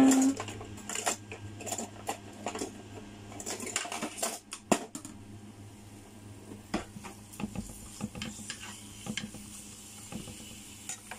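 Plastic spatula scraping and knocking against a nonstick pan while chopped ginger and garlic are stirred in oil: irregular clicks and scrapes. A brief loud low tone sounds right at the start.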